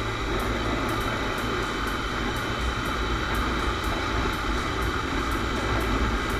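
Steady riding noise of a Honda CBR 250R on the move: its single-cylinder engine running evenly at cruising speed, mixed with wind rush on the microphone.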